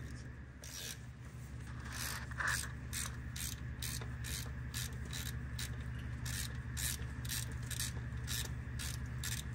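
A hand ratchet wrench being swung back and forth on a bolt, its pawl clicking in short strokes about twice a second, over a steady low hum.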